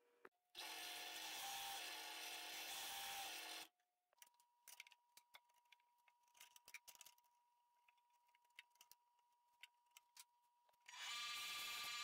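A power saw runs for about three seconds, then stops; light clicks and taps of wood and a pencil being handled follow, and near the end a band saw starts up and runs steadily as a board is fed to the blade.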